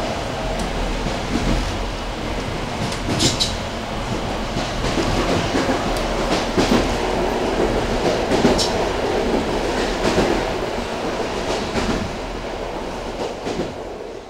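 Passenger train running, heard from inside a carriage: a steady rumble with wheels clattering over rail joints and an occasional sharper clank. The sound fades out near the end.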